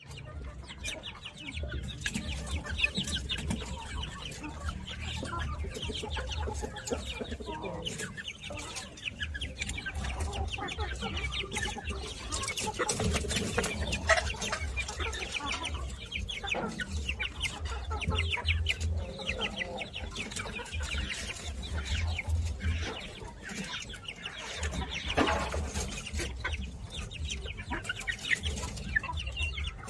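A flock of young chickens peeping and clucking, a dense chorus of short high calls, over a steady low rumble.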